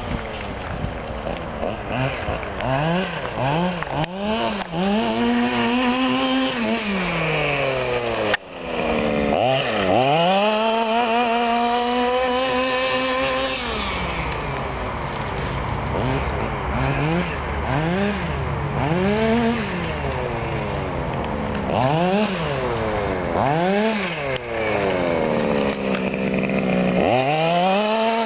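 Radio-controlled buggy's small two-stroke nitro engine revving up and down over and over as it is driven hard, the pitch climbing and falling with each burst of throttle. The sound cuts out briefly about eight seconds in.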